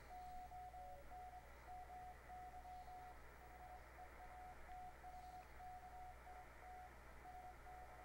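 Morse code (CW) from an amateur radio station heard through a shortwave receiver: one steady beep keyed on and off in dots and dashes, faint over receiver hiss and a low hum.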